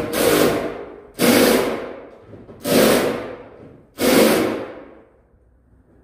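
Cordless power driver run in four short bursts about a second and a half apart, each starting sharply and tailing off, driving screws into the ceiling to fix a light's mounting bracket.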